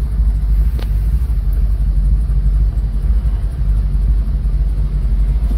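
Steady low rumble of a car driving, heard from inside the car: road and engine rumble at an even level.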